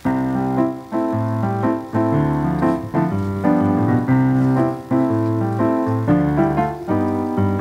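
Background music: a piano playing a melody over sustained chords, the notes changing about every half second.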